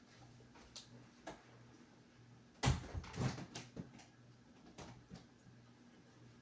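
Closet door being shut tight: a few light clicks, a sharp thud about two and a half seconds in, then several smaller knocks.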